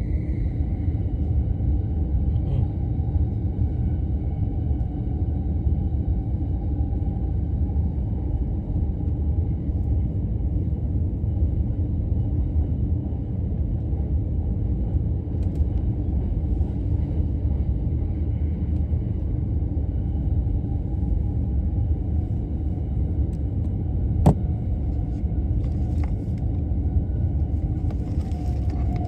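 Steady low rumble of a Tokaido Line train running at speed, heard from inside the carriage, with a single sharp click late on.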